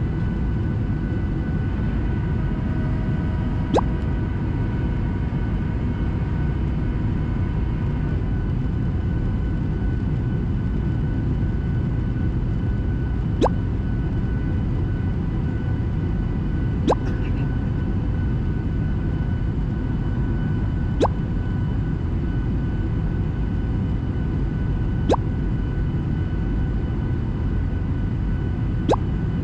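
Boeing 737 cabin noise in flight: a steady low rush of airflow and engine noise with faint steady whines over it. About six short sharp clicks come several seconds apart.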